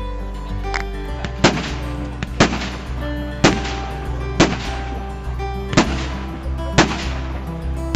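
Fireworks going off: about seven sharp bangs roughly a second apart, over steady background music.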